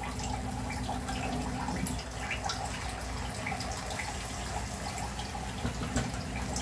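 Silicone spatula scooping and turning steamed biryani rice in a nonstick pot: soft scrapes and small scattered clicks over a steady low hum.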